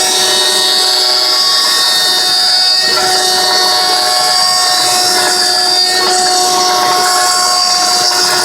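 CNC machine spindle running and cutting material, a loud steady whine made of several tones over a hiss; the tones shift slightly about three and six seconds in.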